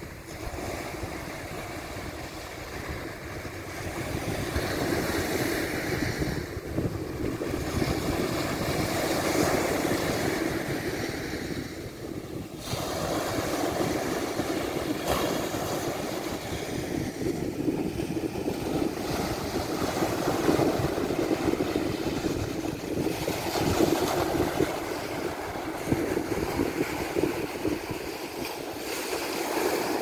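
Small sea waves breaking and washing up on a sandy beach: a steady wash of surf that swells and eases every few seconds. Wind buffets the microphone underneath.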